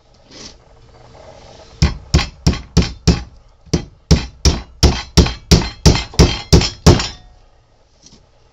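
Hammer driving nails into the corner joint of a wooden beehive super: about fifteen quick, sharp strikes, roughly three a second, with a short pause after the first five.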